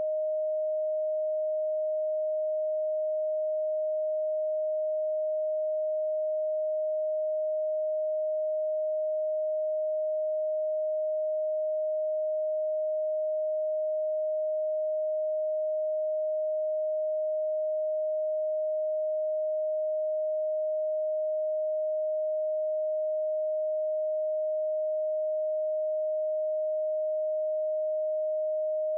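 A pure electronic sine tone, a Rife frequency, held steady at a single mid pitch with no other sound.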